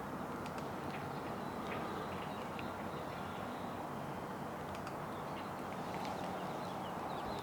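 Small birds chirping: short, scattered high chirps over a steady low background rumble.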